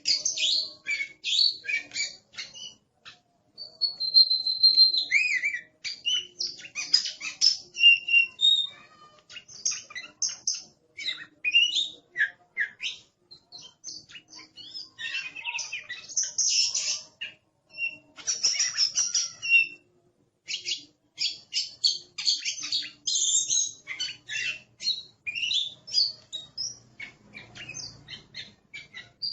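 Oriental magpie-robin singing in fierce, combative form: a fast, varied stream of sharp chirps, trills and whistles, broken by a few short pauses.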